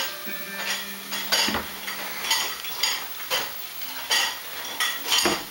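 Light clinking and rattling in uneven bursts, about two a second, from a cat toy on a string tied to a spinning ceiling fan as it swings and is tugged.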